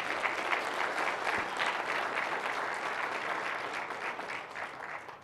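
Audience applauding, a dense patter of many hands clapping that stops abruptly near the end.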